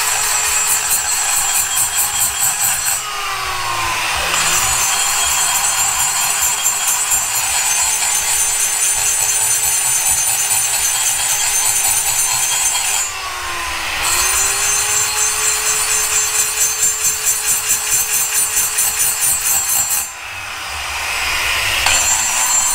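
A die grinder with a burr spins at a steady high whine while porting an aluminium cylinder head. Its pitch sags and picks up again three times, at about 3, 13 and 20 seconds in. Background music with a tambourine-like shaker beat plays along with it.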